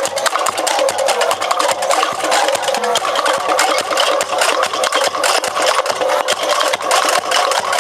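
Fast, continuous drumming from a street-dance percussion band, a dense run of rapid beats.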